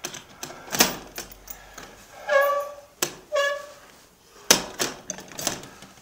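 Rattles and sharp clicks inside a Swift articulated bus, with two short beeps of the same pitch about a second apart near the middle.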